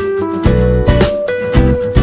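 Background music with a steady beat and held pitched notes.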